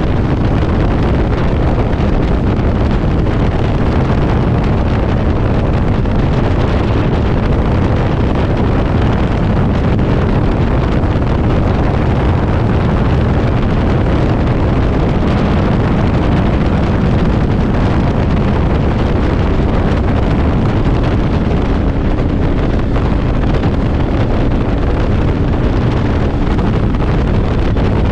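Loud, steady wind noise buffeting the microphone over a Yamaha V-Star motorcycle's V-twin engine running at a steady cruise.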